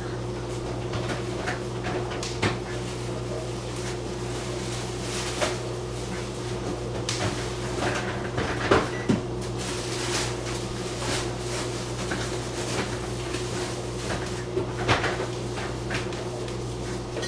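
Gas stove burner lit under an empty stainless steel saucepan as it heats: a steady hum with scattered light clicks and knocks.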